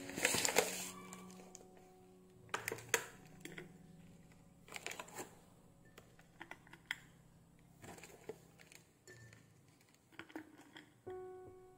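Chocolate almond cookies dropped one at a time into a glass jar: clusters of light clicks and taps against the glass every second or two.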